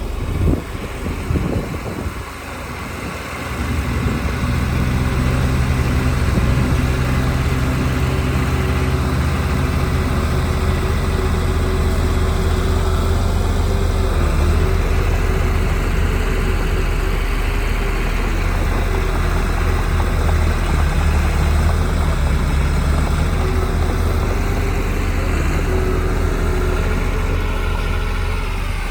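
Heavy diesel engine of earthmoving machinery (bulldozer or dump truck) running steadily. A few knocks come in the first three seconds before the steady engine sound takes over.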